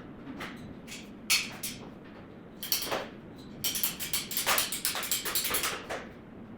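Installation work handling tools and parts: a few separate clicks and knocks, then about two and a half seconds of rapid clattering and scraping.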